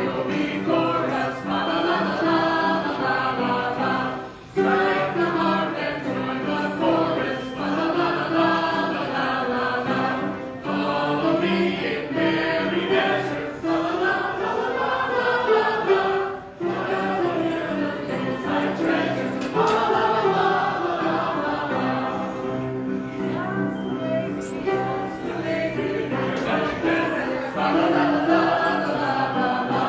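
A small mixed group of carolers singing a Christmas carol together, with brief pauses between phrases.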